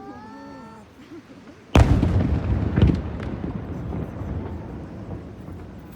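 Aerial firework shells bursting: a sudden loud boom a little under two seconds in, a second bang about a second later and a few smaller pops, over a long fading rumble.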